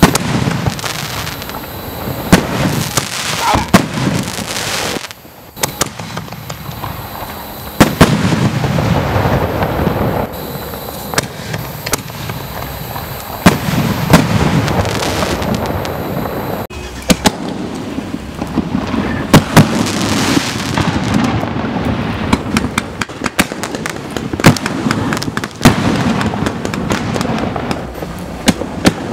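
60-gram aerial canister shells bursting overhead one after another, each a deep boom every few seconds with sharp reports and scattered crackling pops between them.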